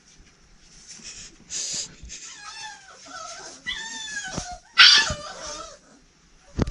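Dog vocalising: two short harsh barks, about a second and a half and five seconds in, with whining calls that slide up and down in pitch between them. A sharp knock just before the end.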